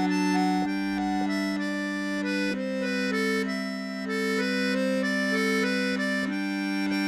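Pigini piano accordion playing a folk tune solo: a melody of short stepping notes over held bass notes that shift a few times.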